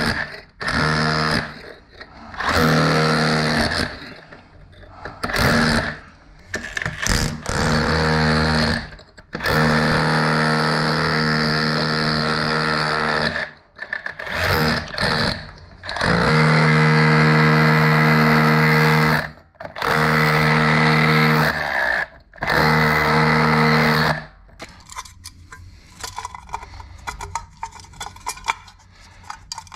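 DeWalt XR cordless SDS rotary hammer in chisel mode, its wide flat chisel bit hammering out brick to make room for a socket back box. It runs in repeated bursts of a few seconds each with short pauses. It stops near the end, leaving light scattered clicks and knocks.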